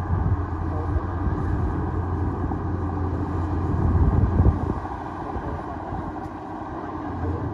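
Bulldozer's diesel engine running under load, swelling louder about four seconds in, then easing back.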